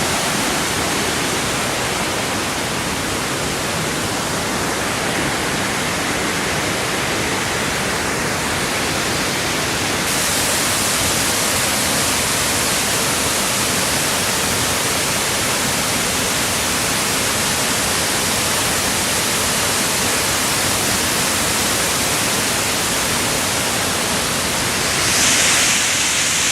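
Dip Falls waterfall, swollen by rain and flowing heavily, its water making a loud, steady rushing hiss. About ten seconds in the sound turns brighter and higher, and it swells briefly near the end.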